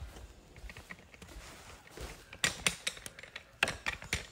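A few sharp clicks and knocks over a quiet background, in two clusters: one about two and a half seconds in, another near the end.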